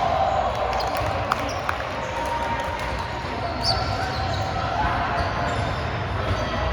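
Volleyball being played in a gym: a few sharp ball smacks, a pair of them about a second and a half in, over players' voices and the steady noise of the hall.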